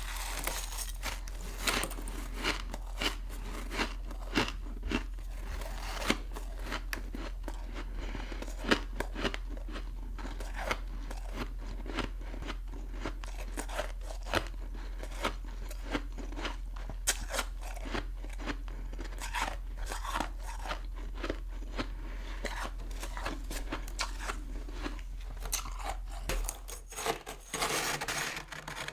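Close-up crunching and chewing of a hard chunk of humidifier frost, sharp crunches about once a second with a steady low hum underneath.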